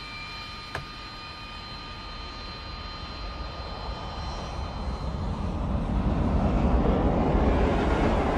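Military jet taking off: a steady turbine whine at first, then engine noise that swells over the last few seconds, loudest near the end.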